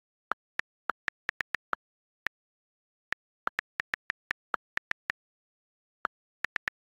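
iPad on-screen keyboard key clicks as a message is typed: about two dozen short, sharp ticks at an uneven typing pace, in quick runs broken by pauses of up to a second, with dead silence between.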